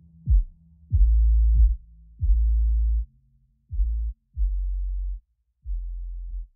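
Background electronic music, bass only: kick-drum hits, each followed by a held deep bass note, in an uneven beat that grows softer near the end.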